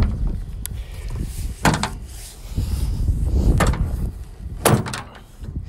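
Several separate metallic knocks and clunks from the steel tailgate and its latches on a 1993 Mitsubishi Minicab mini truck as the tailgate is handled and its latches tested, over a low rumble.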